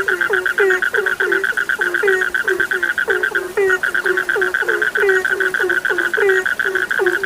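A night chorus of frogs: short, low calls that fall in pitch repeat about three times a second over a steady, dense high trill.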